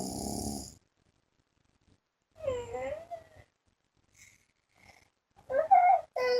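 A man's snore tails off in the first moment. Then a sleeping young child makes wordless vocal sounds in a high voice whose pitch wavers up and down: once about two and a half seconds in, and again from near the end, louder.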